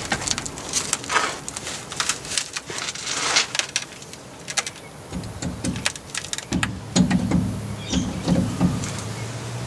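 Scattered metallic clicks and knocks as a heavy rear diff centre is handled and fitted onto the axle housing. From about five seconds in, a series of low pitched sounds comes in over a steady low hum.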